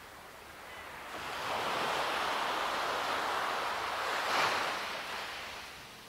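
Ocean surf: one wave washing in, its hiss swelling about a second in, cresting near the four-second mark and ebbing away before the end.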